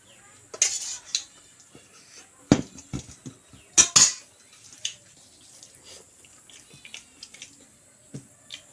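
Plate and hand clinks and knocks while eating a meal of chicken and rice, with scattered sharp clicks. The loudest knocks come about two and a half seconds in and again at four seconds.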